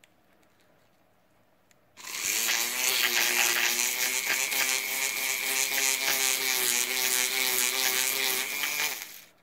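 Handheld electric rotary tool starts about two seconds in and runs at a steady high speed for about seven seconds, its small bit grinding inside a copper pipe fitting, then stops. It is scouring the varnish-like coating off the copper as surface preparation before soldering.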